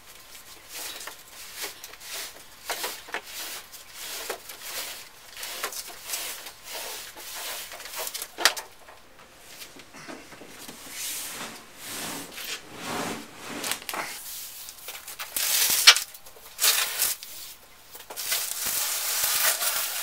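Things being moved and handled in a small room: irregular rubbing, scraping and knocks, with a sharp knock about eight seconds in and busier, louder rustling near the end.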